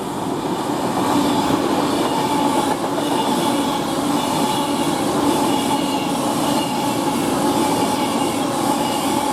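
A passenger train moving through the station, with a steady rolling rumble of wheels on rail and a few held whining tones over it.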